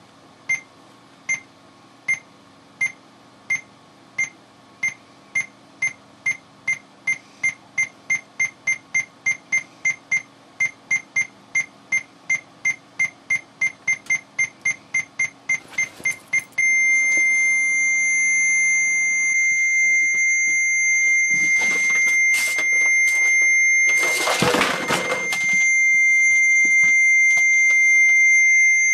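Short electronic beeps at one high pitch, speeding up steadily from about one a second to several a second, then merging about 16 seconds in into one unbroken tone that holds on. About 22 and 24 seconds in, loud noisy crashes sound over the tone, the second lasting about a second.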